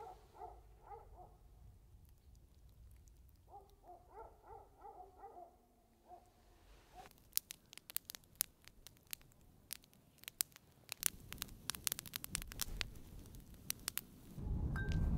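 A faint series of short, evenly repeated animal calls comes in two bursts during the first six seconds. From about seven seconds on, a campfire crackles with many sharp pops. Near the end, a louder low rushing noise comes in.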